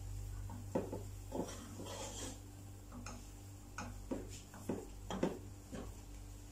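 Wooden spoon scraping and knocking against the inside of a metal cooking pot while stirring a thick, nearly dry milk-and-flour paste, in irregular strokes about every half second, over a steady low hum.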